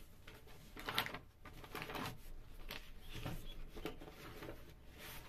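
Cardboard being handled: an inner box scraping and rubbing against the shipping carton as it is pulled out, in several short rustles, the loudest about a second in.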